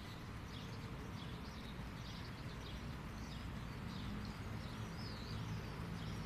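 Birds calling with many short, high notes over a steady low background of outdoor ambient noise.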